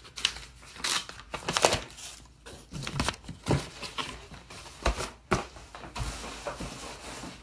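Corrugated cardboard packing sheets being handled and pulled out of a cardboard comic book mailer: irregular scrapes, rustles and knocks of cardboard on cardboard.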